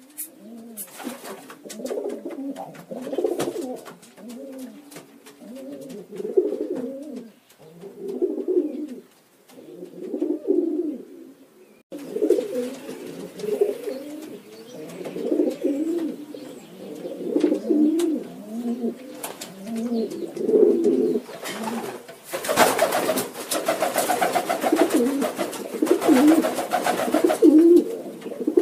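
Domestic pigeons cooing, many calls overlapping one another. For a few seconds near the end a loud rustling noise sounds over the cooing.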